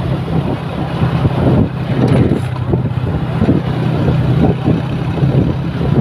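Large bus engine running with a steady low drone.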